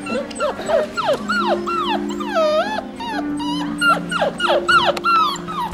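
Scottish terrier puppies whimpering and yipping in a rapid run of high, rising-and-falling cries, calling for their mother, over background music with long held notes.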